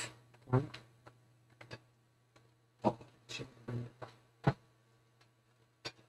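Scattered light clicks and taps, about seven or eight irregular ones, from hands handling a plastic precision screwdriver bit case and tools on a desk, over a low steady hum.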